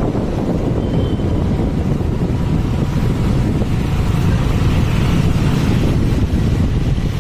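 Steady rumble of wind buffeting the microphone on a moving two-wheeler, with the two-wheeler's engine running underneath.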